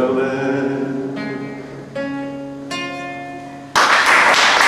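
Nylon-string classical guitar playing the closing chords of a song: four chords plucked about a second apart and left to ring. About three and a half seconds in, audience applause breaks out suddenly and is the loudest sound.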